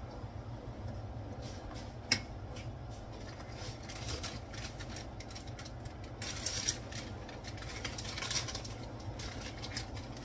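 Thick spaghetti sauce simmering in a pan, with scattered small pops and clicks over a steady low hum. About six seconds in, a denser stretch of crackling runs for some three seconds.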